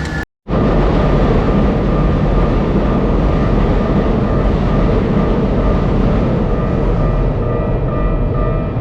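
A Keikyu electric train running past a level crossing: a loud, steady rumble of wheels on rail that starts abruptly at a cut. Near the end the crossing's warning bell comes through as repeated ringing tones.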